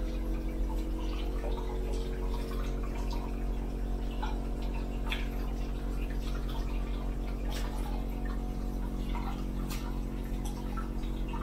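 Hot spring water running from a spout into a full ceramic bathtub, with scattered drips and small splashes, over a steady low hum.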